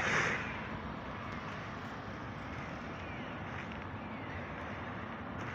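Steady outdoor street background noise, like distant traffic, with a brief louder rush right at the start.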